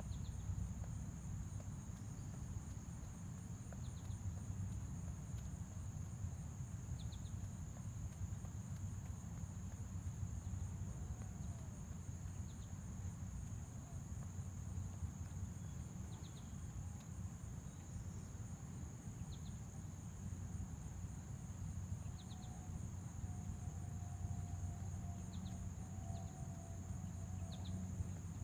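Steady high insect drone of crickets, with short high chirps every few seconds, over a steady low rumble. A faint low hum joins near the end.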